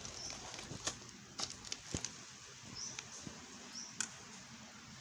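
Newborn kittens being handled in a towel: faint rustling and scattered soft clicks, with a few tiny, short high squeaks.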